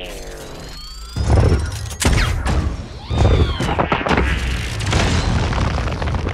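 Film explosion sound effects for a large gun blowing up: three heavy booms about one, two and three seconds in, followed by a continuing rumble of fire and debris.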